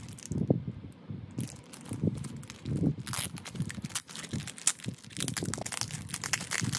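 A clear plastic packaging bag being handled and opened: soft bumps at first, then from about three seconds in, dense crinkling of the plastic.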